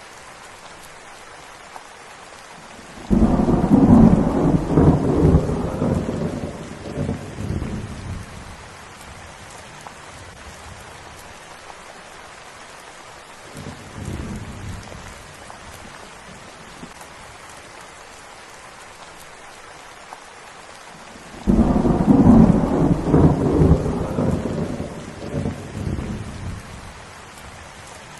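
Steady rain with two claps of thunder that each break suddenly and rumble away over about five seconds, one about three seconds in and one near the end, with a faint distant rumble between them.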